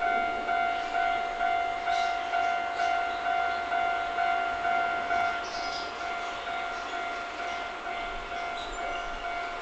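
Railway level-crossing warning bell ringing in an even two-tone ding about twice a second, its strikes growing fainter after about six seconds, over the sound of an electric train approaching slowly.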